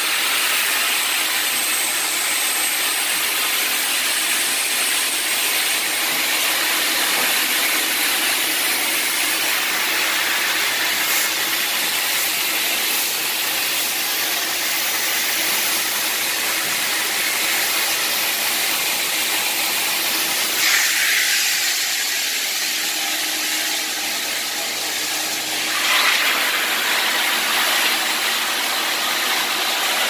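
Wet-vac extractor running, sucking air and flood water off a concrete floor through a small water claw tool on its hose: a steady, high hiss. Past the middle the sound jolts twice, about five seconds apart, thinner in between.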